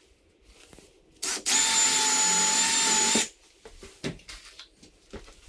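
Milwaukee Fuel cordless drill driving a screw into the wooden backrest of a chair. A brief blip of the trigger comes first, then a steady motor whine for under two seconds that stops abruptly, followed by a few light clicks and knocks.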